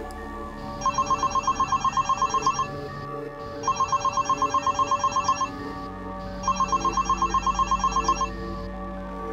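Smartphone ringing with an incoming call: three bursts of a fast, warbling electronic ring, each a little under two seconds long, with short pauses between.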